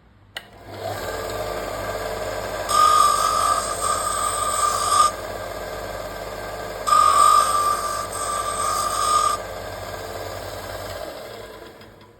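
A small electric power tool switched on with a click and running steadily for about ten seconds. Twice, for about two and a half seconds each time, it gets louder with a higher whine and hiss, as if the tool is biting into material, before it winds down.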